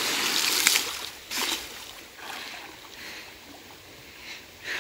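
Water splashing and spray falling back from a person's jump into a river pool, loudest in the first second, then a few separate splashes about once a second as he swims.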